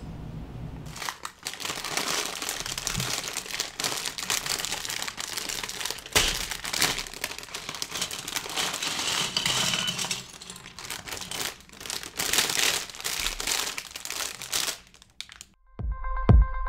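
Plastic bag of LEGO pieces crinkling as it is handled and opened, with small plastic bricks clicking and clattering on a wooden tabletop. Electronic music with a steady beat starts near the end.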